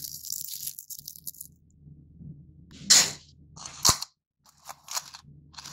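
Stack of thin round crackers handled against clear plastic: a dry rustle at first, then a series of crisp clicks and taps as the crackers and the plastic container knock together.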